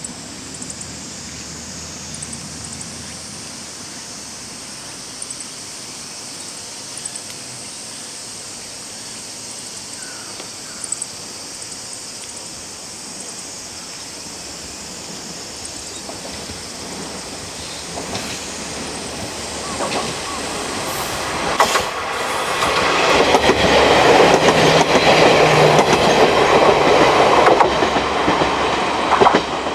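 A JR Kyushu KiHa 40-series diesel railcar approaching and passing: its engine and wheel noise build over the second half, peaking in a loud, rapid clatter of wheels on the rails, then dropping away suddenly near the end.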